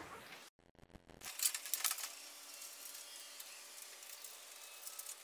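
Felt-tip marker scratching and squeaking along a car's painted steel quarter panel, tracing a cut line in short faint strokes that start about a second in.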